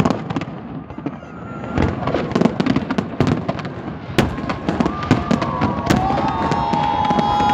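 Fireworks going off in quick succession: a dense run of sharp cracks and bangs, with long steady whistle-like tones joining about five seconds in.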